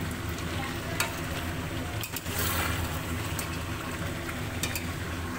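Chicken curry cooking on a gas stove, a steady hiss and hum as the meat fries down in its oil, with a few light clicks about a second in and near the end.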